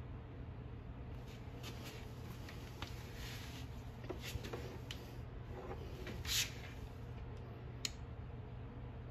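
Rustling and scraping of a hot-staple plastic welder being handled and set against a broken plastic tab on an ATV fender, with a louder scrape about six seconds in and a single sharp click near the end. A steady low hum runs underneath.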